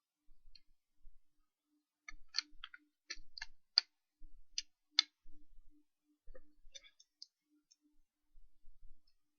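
Plastic Lego bricks clicking as pieces are handled and pressed together: a run of sharp clicks in the middle, then a few lighter ones a couple of seconds later.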